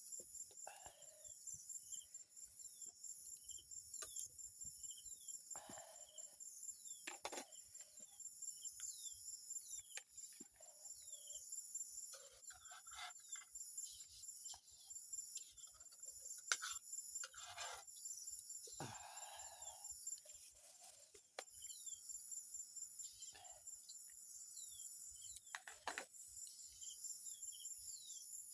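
Night insects, crickets among them, trilling steadily at a high pitch. Short falling chirps repeat about once a second, and scattered clicks and brief rustles are heard.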